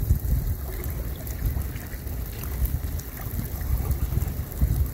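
Rain falling on a river in a steady hiss of drops, with wind buffeting the phone's microphone in low rumbling gusts, the strongest just after the start and again near the end.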